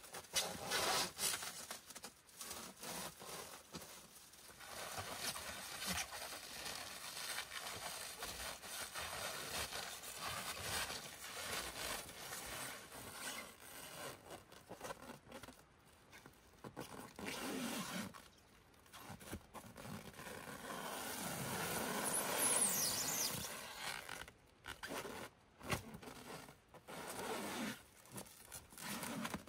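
Clear plastic stretch wrap being pulled off a large roll and wound around tree trunks: long rasping, crinkling pulls with short pauses between them, the loudest about three quarters of the way through.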